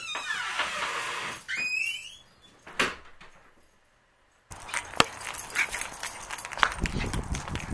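A couple of short high squeals and a rustling, then a single click. About four and a half seconds in comes a quick string of light ticks and steps: footsteps and a small dog's claws on a concrete sidewalk.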